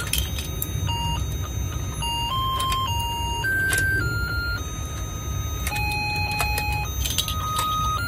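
Battery-powered hen-shaped fishing game toy running: its electronic tune plays as a simple melody of single beeping notes over the steady hum of the motor turning the pond board, with a few sharp plastic clicks.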